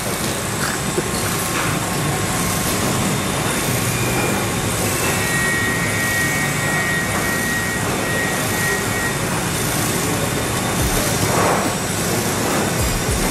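Steady machinery noise in a soldering workshop: an even hiss-like drone with a low hum under it, and a faint high tone for a few seconds midway.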